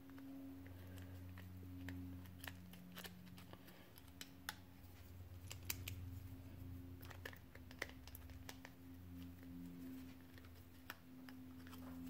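Faint, scattered small clicks and scrapes of a flat-blade screwdriver tip working against the metal and plastic parts of a Zebco 11 reel's back plate, prying at a brass axle bushing, over a low steady hum.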